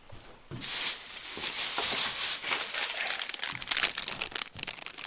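Packaging being handled and crinkled, a dense run of small crackles and rustles that starts about half a second in and lasts roughly four seconds.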